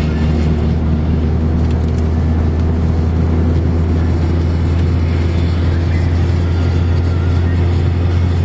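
Steady low drone of a car's engine and tyres, heard from inside the cabin while driving along a snow-covered road.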